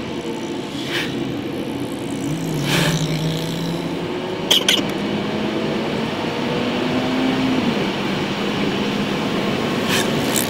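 Steady road and engine noise from inside a moving car's cabin at highway speed, with a low hum that drifts slightly in pitch. A few short sharp sounds cut through it, the loudest about halfway through.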